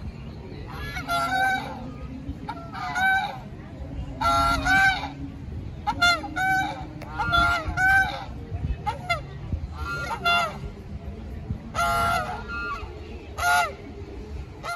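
Domestic geese honking repeatedly, loud pitched calls coming about every one to two seconds, sometimes in quick runs of two or three.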